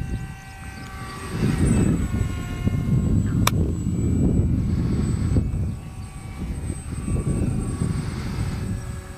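Pusher propeller motor of an RC foam MiG-29 model whining overhead, its pitch rising and falling as the throttle changes during aerobatics, under a loud, uneven low rumble. A single sharp click sounds about three and a half seconds in.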